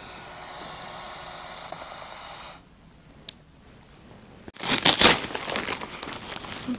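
A steady hiss for the first two and a half seconds and a single click. Then, from about halfway through, loud crinkling and tearing of a plastic mailing bag being unwrapped.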